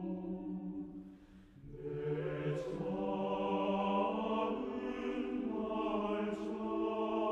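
Choir singing a Korean art song in a choral arrangement: sustained chords with a short break about a second in, after which the voices re-enter and swell into a fuller chord.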